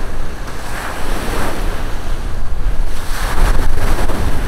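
Small waves breaking and washing up the sand at the shoreline, swelling about a second in and again around three seconds in, with wind buffeting the microphone.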